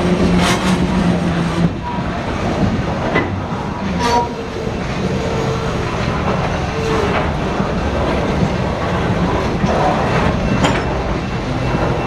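Norfolk Southern local freight train rolling past: a steady rumble of rail cars, with irregular clacks of wheels over rail joints.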